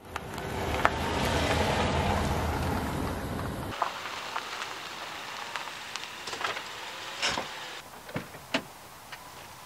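Outdoor ambience: a loud, even rushing noise, heaviest in the low end, cuts off abruptly a few seconds in. It gives way to quieter open air with a scattering of short, light clicks.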